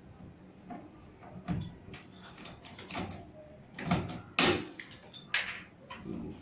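A series of knocks, clatters and short scrapes, like objects being handled and set down, with the loudest knock about four and a half seconds in.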